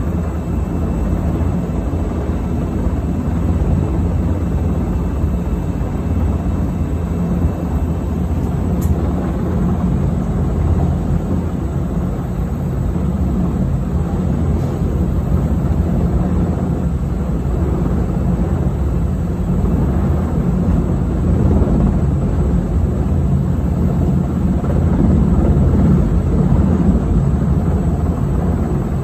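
Navy Seahawk helicopter hovering low overhead: steady, loud rotor and turbine engine noise, a little louder near the end.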